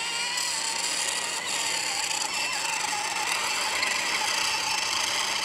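Brushless motors and propellers of a 5-inch FPV quadcopter whining steadily as it hovers just above the grass, the props spinning inside smashed 3D-printed prop guards, with a slightly wavering pitch.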